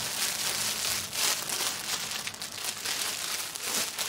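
Clear plastic wrapping on folded clothing packs crinkling and rustling as they are picked up and handled, a continuous, irregular crackle.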